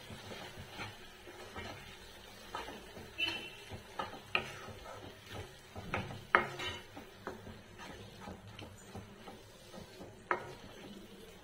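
Wooden spatula stirring and scraping a thick gongura paste around a non-stick kadai, with irregular knocks of the spatula against the pan. The sharpest knocks come about six seconds in and near the end.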